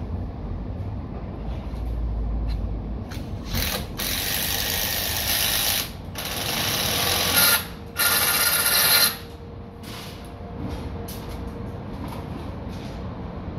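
Handheld power drill run in three bursts of a couple of seconds each, starting about three and a half seconds in and stopping briefly twice, against a low site rumble.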